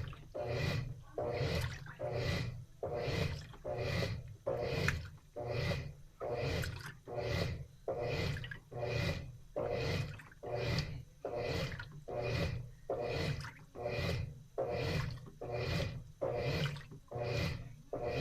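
Washing machine in its wash cycle, laundry and water sloshing in the turning drum in a steady rhythm of swishes, a little over one a second, over a low motor hum.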